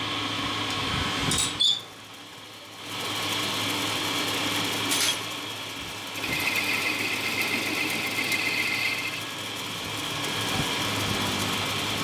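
A metal lathe runs with a steady mechanical hum while it turns a motorcycle fork tube held in its chuck. The hum drops away briefly about two seconds in, after a sharp click, then comes back. A higher steady whine joins it for about three seconds in the middle.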